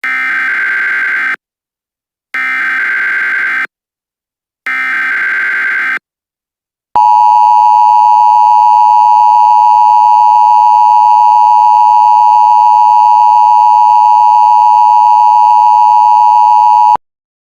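Emergency Alert System tones: three short bursts of SAME header data, about a second apart, then the steady two-tone EAS attention signal for about ten seconds, cutting off abruptly.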